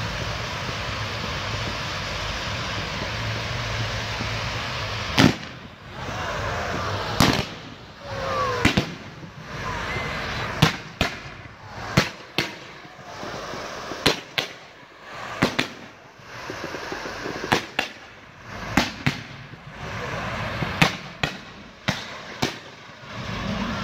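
Low-noise display fireworks: a steady rushing hiss from a ground fountain, then from about five seconds in an irregular run of about twenty sharp bangs, roughly one a second or faster, as shells and comets burst. A few short whistles glide in pitch among the first bangs.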